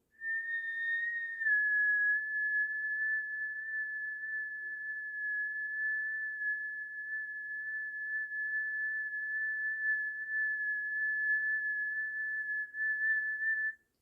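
One long, steady, high whistled note, held for about thirteen seconds with a small drop in pitch about a second and a half in and a slight waver, then cut off.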